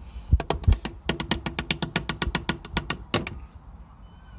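Two knocks, then a fast, even run of clicks, about ten a second for roughly two seconds, ending in a louder knock.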